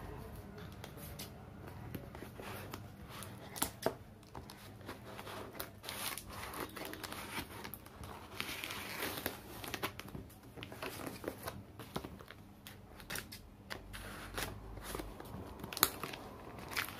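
Large scissors slicing along the taped seam of a plastic-wrapped cardboard box, with scratchy cutting, crinkling of the plastic wrap and tape, and scattered clicks. One sharper click comes near the end.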